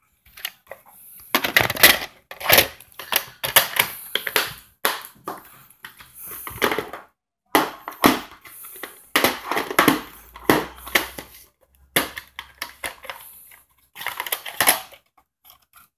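Plastic VHS clamshell cases and tapes being handled on a wooden table: irregular clicks, snaps and taps of the cases opening and shutting, with scraping and rustling in between.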